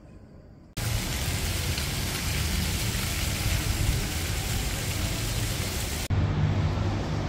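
Small street-fountain jets splashing into a shallow paved water channel: a steady, loud hiss of falling water with a low city rumble beneath. It starts abruptly just under a second in, after a moment of quiet room tone, and cuts off at about six seconds to lower street ambience.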